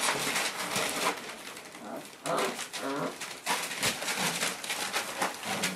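Five-week-old Boerboel puppies whining and squeaking in short, high-pitched calls.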